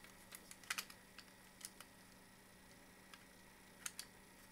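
Small, sharp plastic clicks and taps from the shell and inner parts of a Hama USB laser mouse as they are handled and fitted together, at irregular intervals, the loudest about three quarters of a second in.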